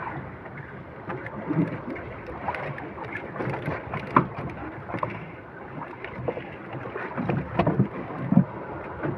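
Wind and water around a small fishing boat at sea, with scattered knocks and clicks as a fishing handline is worked on a plastic hand spool.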